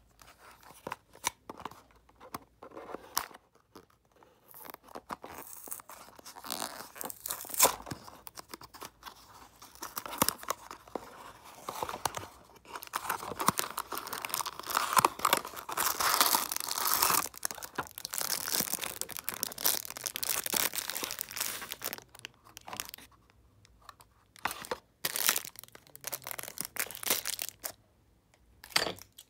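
Small cardboard toy-car box being torn open by hand. Scattered taps and scrapes of handling come first, then several seconds of continuous cardboard tearing in the middle, then a few short rips and rustles.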